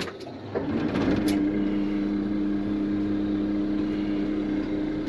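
Dump truck idling while its air-brake pressure builds. About half a second in, the cab's air-conditioning blower comes on and settles into a steady two-tone hum over the engine.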